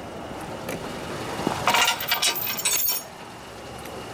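Steel safety chain on a tow dolly rattling and clinking as it is handled: a burst of clinks lasting about a second, starting a little before halfway.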